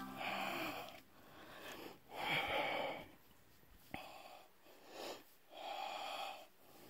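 A person breathing audibly, slow breaths in and out repeating every second or two, with a small click about four seconds in.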